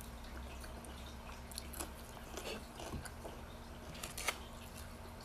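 A person chewing food with the mouth close to the microphone: soft, scattered mouth clicks, with a sharper click about four seconds in, over a low steady hum.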